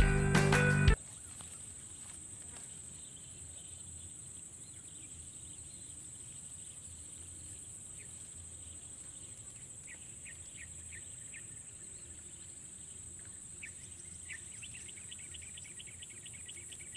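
A music jingle for about the first second, then a steady high-pitched insect drone over quiet swamp ambience. A few short chirps come in near the middle, and a fast run of them near the end.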